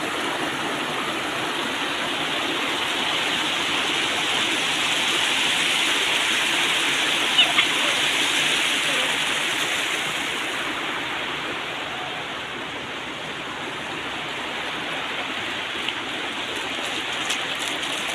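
Water pouring down a stepped stone cascade channel, a steady rushing noise that eases a little past the middle, with a couple of brief clicks.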